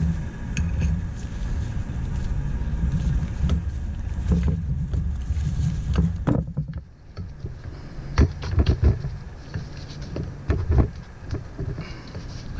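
Low rumble, then from about halfway through a series of short metal clinks and knocks as a steel pulley is handled and set onto a power steering pump's shaft.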